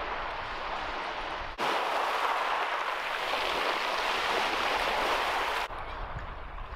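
Small waves washing onto a shingle beach at the water's edge, a steady rushing hiss that cuts in sharply about a second and a half in and stops abruptly about a second before the end. Before and after it, a quieter outdoor background with a low wind rumble.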